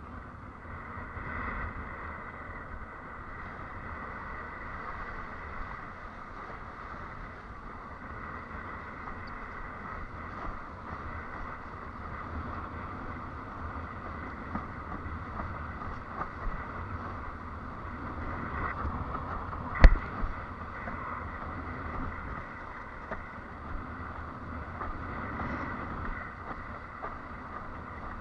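Steady rush of wind and water as a windsurf board moves over the sea, with wind buffeting the microphone. There is one sharp knock about twenty seconds in.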